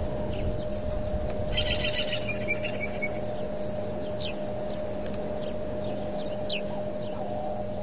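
Birds calling: a short rapid trill about a second and a half in, then a few thin whistles that fall in pitch. Under them runs a steady electrical hum.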